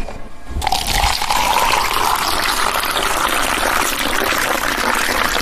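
Steady rushing noise of running or pouring water. It sets in about half a second in and holds steady and loud.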